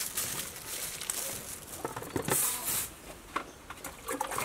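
Cut cucumber and carrot pieces tipped from a plastic basket into a metal cooking pot, pattering and knocking as they land, with a few separate clatters as the last pieces are shaken out.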